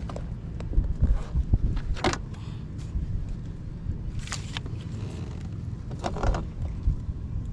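Wind buffeting the microphone on a kayak, a steady low rumble with three short bursts of splashy noise about two, four and six seconds in.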